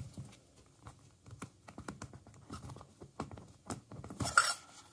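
Metal Poké Ball collector's tin being handled and opened: scattered light clicks and taps of the tin, with a louder scrape about four seconds in.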